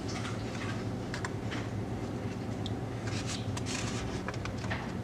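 Paper rustling and brushing as a hand moves over the pages of a large instruction booklet and lifts a page to turn it, with a few light taps, over a steady low hum.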